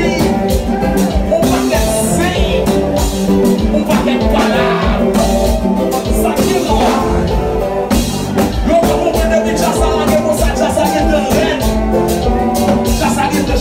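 Haitian kompa band music, loud, with singing over a steady drum beat.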